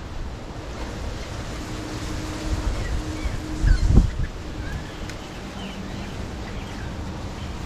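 Wind rumbling on the microphone, with faint bird chirps and a single thud about four seconds in.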